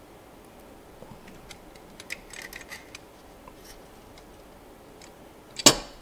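Faint clicks and creaks as pliers squeeze a new SFF-8643 connector's press-fit pins into a circuit board, then near the end one sharp knock as the metal pliers are set down on a wooden bench.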